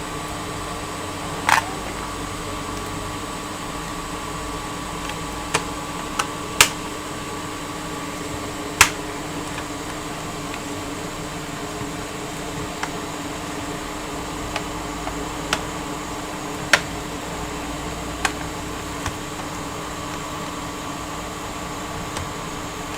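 Steady background hum of bench equipment with about a dozen sharp clicks and taps scattered through, the loudest a few seconds in, from small tools and parts being handled during laptop repair work.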